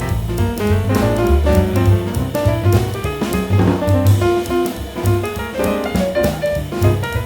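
Background music: a jazz-style instrumental with piano, walking bass and drum kit keeping a steady beat.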